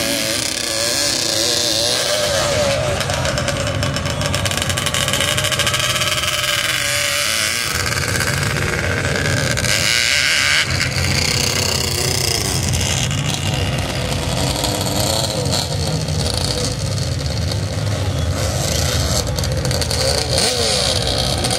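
Sand drag racing: quad ATVs on paddle tires and a pickup truck running up a sand hill at full throttle, their engines revving and rising in pitch, over a steady rush of engine and tire noise.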